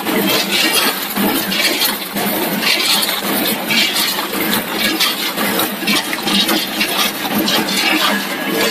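Automatic snack packing machine running: a loud, unbroken mix of clatter and hiss with bursts of higher hiss every second or so.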